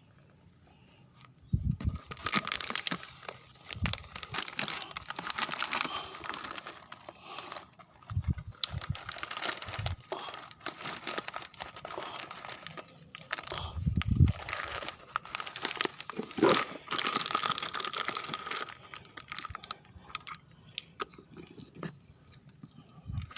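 Plastic food packet crinkling and tearing as it is handled and opened to feed the cat, in dense crackly stretches with a few soft thumps.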